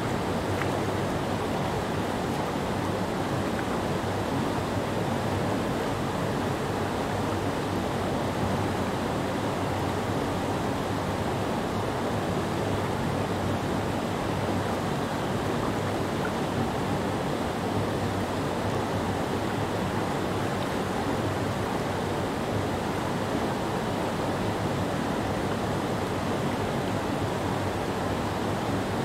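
Creek water rushing and churning steadily as it pours over a low rock ledge in a broad white-water cascade. It is a full, even rush with no breaks.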